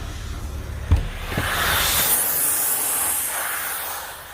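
A jet hissing for about three seconds as dust is cleaned off the car, starting just after a single knock about a second in and fading out near the end.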